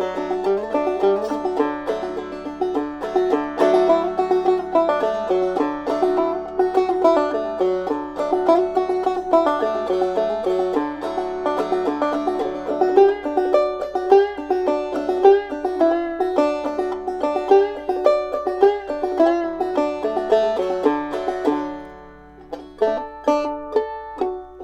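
Clawhammer banjo in D tuning playing an old-time tune: a steady, driving stream of plucked notes over the ringing open strings. Near the end it slows to a few last ringing notes that fade out as the tune finishes.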